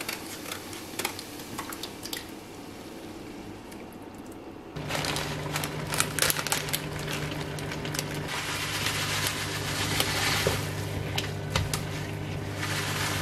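Onion, carrot and chopped tomato sizzling in a frying pan while a wooden spatula stirs, tapping and scraping against the pan. A steady low hum sets in about five seconds in and continues under it.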